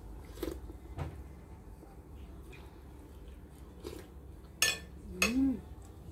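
Eating at the table: a metal spoon clinking on a ceramic plate, with a few light clicks, then two sharp clinks about half a second apart near the end, the second accompanied by a short hum from the eater.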